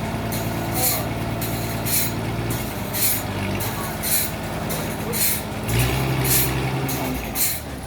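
Sawmill machinery running: a steady motor hum that changes pitch a couple of times, with a sharp hiss repeating about once a second.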